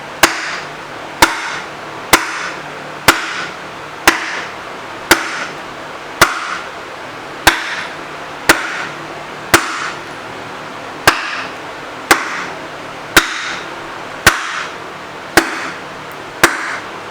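Steady sledgehammer blows, about one a second, each with a short metallic ring, pounding a rust-seized cast-iron lathe tailstock to drive it along the ways.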